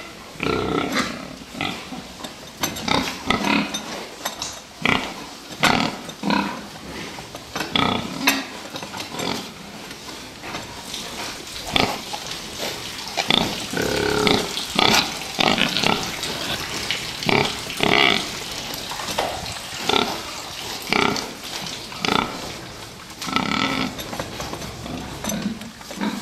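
Crowded fattening pigs grunting and calling: a dense, irregular run of short calls, several overlapping, some rising higher and louder.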